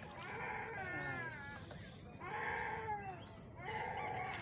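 An animal calling repeatedly: three wavering cries that fall in pitch, each about a second long, with a short high hiss about a second and a half in.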